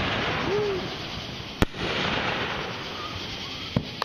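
Fireworks going off: a steady crackling hiss, with one sharp bang about one and a half seconds in and a smaller crack near the end.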